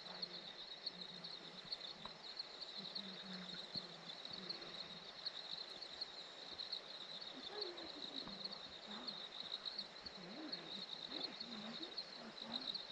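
Faint, steady, high chirring of insects, probably crickets, with a fast pulsing trill. In the second half there is a faint murmur that sounds like distant voices.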